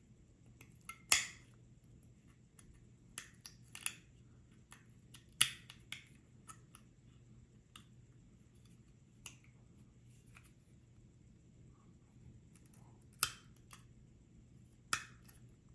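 Tweezers and small metal parts clicking and tapping against an iPod mini's metal case as an internal bracket is worked into place. Scattered sharp clicks, about seven in all, the loudest about a second in and again near the middle.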